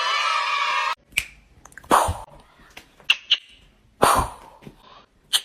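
A harsh sound lasting about a second that cuts off abruptly, then a dog giving four short barks spaced a second or more apart.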